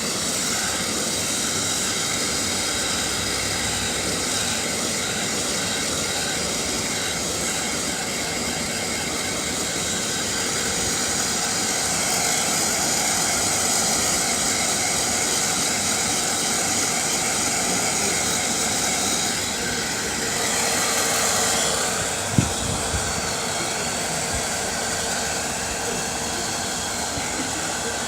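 Hair dryer blowing steadily while drying a cat's coat after a shampoo. The sound shifts briefly about 20 seconds in, and there is a single short knock a little after 22 seconds.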